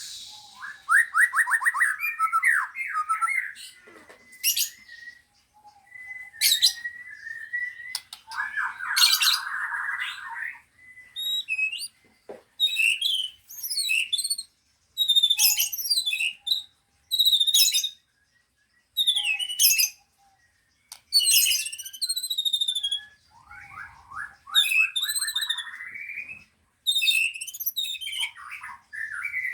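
Songbirds singing in bursts with short pauses between them: fast buzzy trills alternating with quick, high, twittering whistled phrases.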